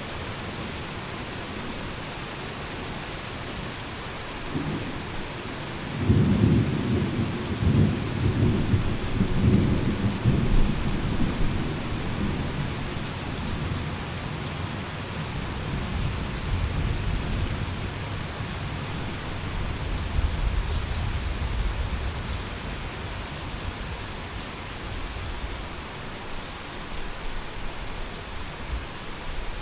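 Heavy rain falling steadily, with a sudden crack of thunder about six seconds in that rolls on as a deep rumble for several seconds, and a further low, distant rumble of thunder later.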